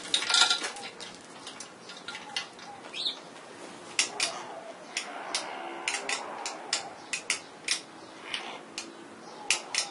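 Irregular metallic clicks and clinks from a patient lift's chain and electric-jack mechanism as it tries to raise a load and fails, with a louder clatter about the first half-second. The jack's motor, running without a run capacitor, cannot lift the load.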